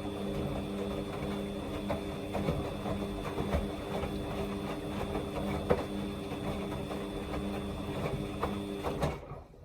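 Samsung washing machine running a Quick 29 cycle: a steady motor hum with scattered clicks and rattles. It stops about nine seconds in.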